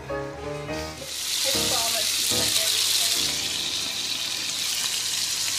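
Guitar music ends about a second in, then food sizzles steadily as it fries in a hot pan.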